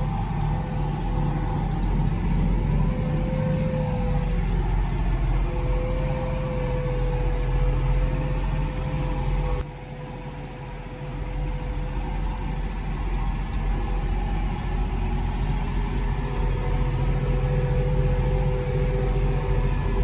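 Fendt 211 tractor running under steady load while driving a six-rotor tedder from the PTO at 540, heard from inside the cab: a low engine drone with a steady whine over it. About halfway through the level drops suddenly, then builds back up.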